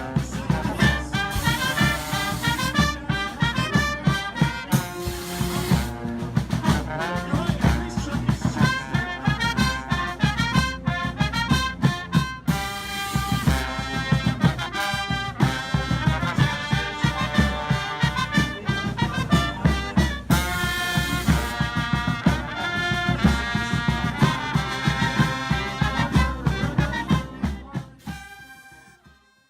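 Brass street band playing a tune, horns over a steady drum beat; it fades out near the end.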